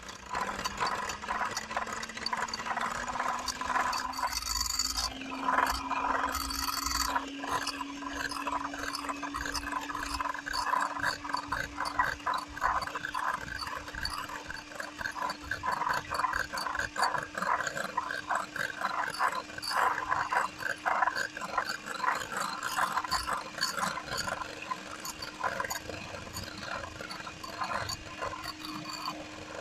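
Handheld electric whisk running in a ceramic bowl: a steady motor hum that climbs slowly in pitch over the first few seconds and then holds, over the rattle of the whisk beating against the bowl. It is beating egg yolk, mustard and oil into a thick emulsified sauce.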